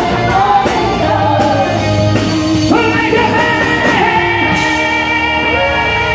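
Live rock music: a stage band playing with a male lead singer singing into a microphone, heard at concert volume from the audience.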